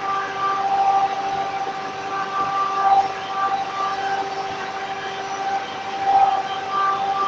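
Circular saw running with a steady high whine while balsa wood is cut, swelling louder about a second in, near three seconds and near six seconds.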